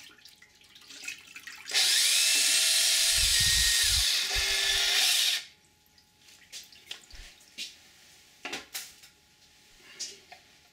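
Power drill spinning a paint-stirring paddle in a plastic bucket of milky coolant, mixing the concentrate into water until the emulsion is uniform. It starts about two seconds in, runs steadily for nearly four seconds with the liquid churning, then stops suddenly. A few light knocks and taps follow.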